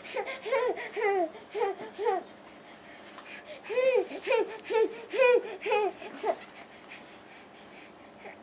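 Infant babbling in short, high-pitched syllables, in two bouts a couple of seconds apart.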